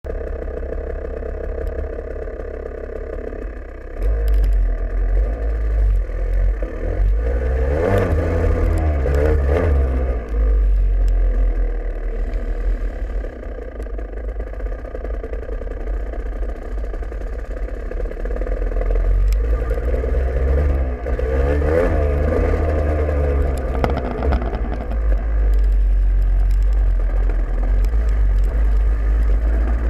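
KTM 250 SX two-stroke dirt bike engine running as the bike is ridden. It gets louder about four seconds in and revs up and down twice, once about eight to ten seconds in and again a little past twenty seconds.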